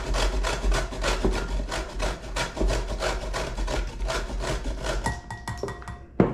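Fresh ginger root being grated by hand on a metal grater: a steady, rhythmic rasping at about four strokes a second that stops near the end, followed by a single sharp knock.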